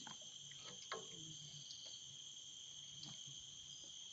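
Faint, steady high-pitched chorus of insects such as crickets, with a few soft knocks, one about a second in.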